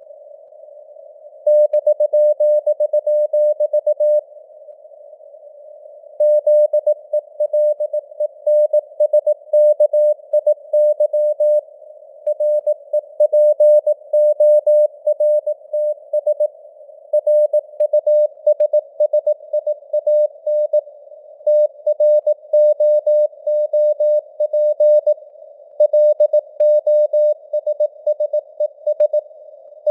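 Morse code (CW) news text sent at 18 words per minute: a single steady beep tone keyed on and off in dots and dashes, with short pauses between words. It sits in a narrow band of hiss of simulated radio noise.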